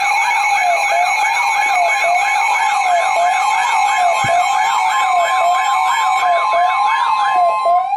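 Electronic siren tones: a fast up-and-down sweep about twice a second layered over a slower rise-and-fall and a steady tone, cutting off just at the end.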